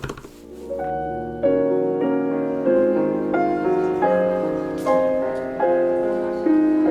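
Solo piano music, slow single notes and chords struck about every three-quarters of a second and left to ring.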